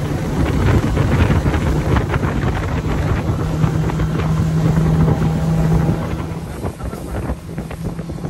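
Steady engine drone under heavy wind buffeting the microphone, as when riding in a moving motor vehicle or boat. The drone fades and the level drops about six seconds in.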